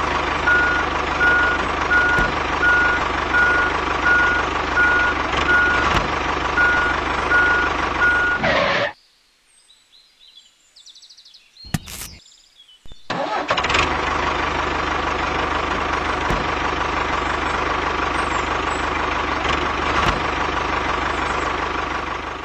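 Tractor engine running steadily. For the first eight seconds or so it comes with a beeping tone repeating under a second apart. It cuts out for about four seconds, broken only by a brief click, then runs steadily again.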